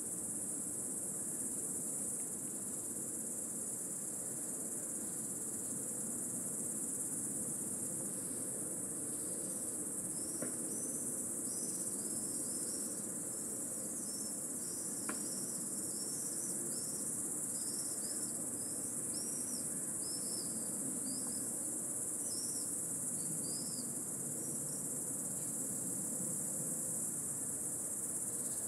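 Intense, unbroken insect chorus: a loud, steady, very high-pitched shrill. From about nine seconds in, a run of short chirps, each rising and falling, sounds a little lower in pitch for some fifteen seconds.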